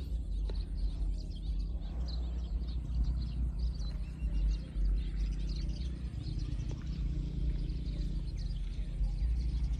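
Outdoor ambience: a steady low rumble with faint bird chirps.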